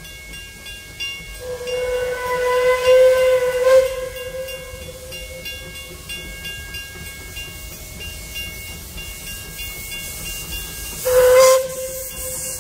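Narrow-gauge steam locomotive's whistle: one long blast of a bit over two seconds, then a short second blast near the end with a rush of steam hiss, as the train departs. A level-crossing bell rings steadily underneath.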